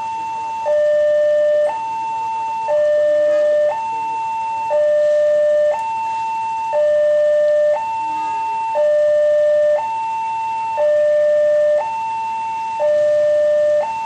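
Railway level-crossing warning siren, newly replaced, sounding from a horn loudspeaker on the crossing post: a steady two-tone hi-lo alternation, a higher tone and a lower tone each held about a second, the higher one louder. It is the crossing's alarm that a train is approaching, with the barriers down.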